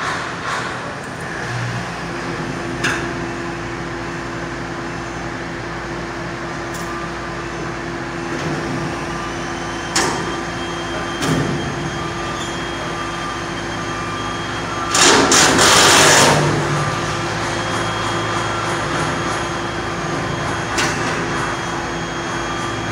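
Steady machinery hum with a few scattered knocks, and a loud burst of rushing noise lasting about a second and a half, about fifteen seconds in.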